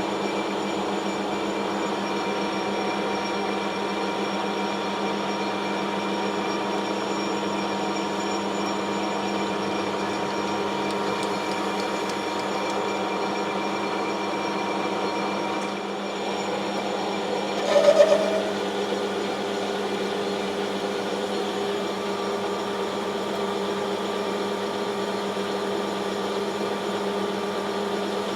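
Metal lathe running steadily, its motor and gear train giving a continuous hum with several held tones. About two-thirds of the way through comes a brief, louder squeal.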